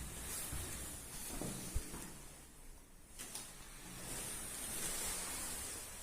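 A drunk man asleep on the floor, snoring with slow, hissing breaths; a longer hissing breath swells from about four to six seconds in.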